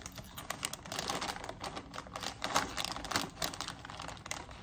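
Potato chips crunching while being chewed, a rapid irregular crackle, mixed with the foil snack bag crinkling as a hand reaches into it.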